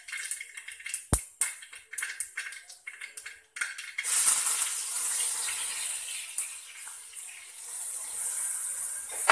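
Scattered pops of mustard seeds in hot oil, with a knock about a second in. About three and a half seconds in, a sudden loud sizzle starts as crushed onion and ginger hit the oil in a wide aluminium uruli, and it goes on sizzling steadily.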